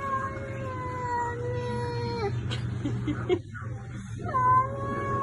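Cat yowling in distress at being bathed: two long, drawn-out yowls, the first ending about two seconds in and the second starting about four seconds in.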